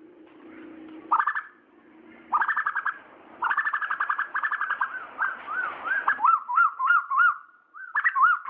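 Asian koel calling: several rapid series of sharp repeated notes, the longest running for about a second and a half, then a run of looping, rising-and-falling notes about three a second in the second half.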